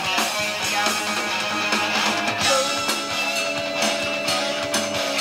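Distorted electric guitar, a Gibson Les Paul Custom through a Splawn Quick Rod amp and a 4x12 cabinet, playing a lead line. Picked notes lead into one note that is bent about halfway through and held to near the end.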